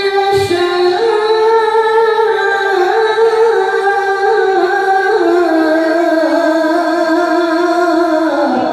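A qari's solo melodic Quran recitation (tilawah), amplified through a microphone: one long melismatic phrase of held, ornamented high notes that step gradually lower and end on a falling glide near the end.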